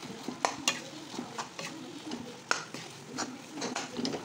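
Metal spatula scraping and knocking against a frying pan while mashing and stirring a potato-and-onion filling, with irregular clicks and scrapes, a few each second.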